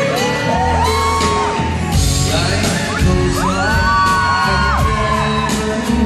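Live acoustic pop performance: male voices singing into microphones over a strummed acoustic guitar, with audience members whooping and yelling.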